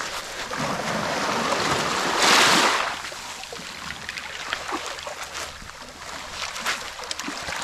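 Small waves lapping at a pebble shoreline, with one louder wash of water over the stones about two seconds in, followed by faint scattered clicks.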